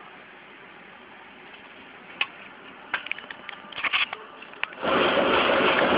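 Machine-gun fire in a city street: a single crack about two seconds in, then a ragged volley of rapid shots. Near the end a loud steady rushing noise takes over.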